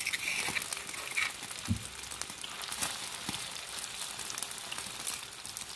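Chopped chilli, shallot and garlic paste sizzling in hot oil in a wok: a steady hiss with scattered small crackles.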